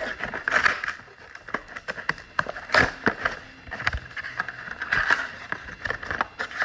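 Sports card boxes and foil packs being handled and opened: crinkling and rustling packaging with scattered clicks and scrapes.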